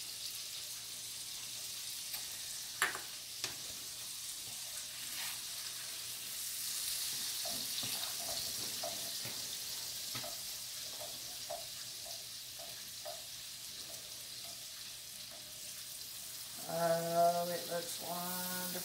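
Shallots and garlic frying in melting butter in a skillet, a steady sizzle as they are stirred with a spoon. A couple of sharp clicks against the pan about three seconds in, and a voice near the end.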